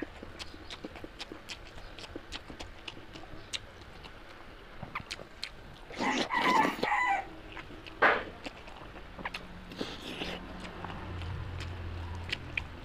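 A chicken calls once, about a second long, some six seconds in, over soft clicks and smacks of someone eating curry and rice by hand. A sharp knock comes about eight seconds in, and a low hum near the end.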